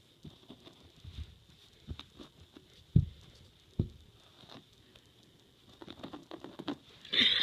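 Scattered soft thumps and scuffling taps from a kitten playing on carpet and from the handheld phone being jostled. The two loudest thumps fall a little under a second apart about midway, and a louder, busier scuffle starts near the end.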